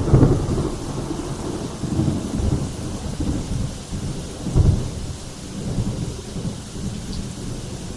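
Thunder rumbling in low, uneven swells during a storm, loudest about four and a half seconds in.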